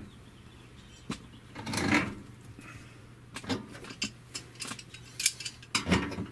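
Irregular metallic clinks and taps of a hand tool against the brass water-line fittings as the pipe connections are worked on, with a louder cluster of knocks near the end.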